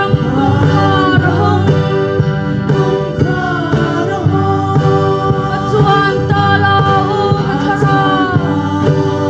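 A small group of singers on microphones singing a gospel song together, accompanied by strummed acoustic guitar and a light beat on a cajon.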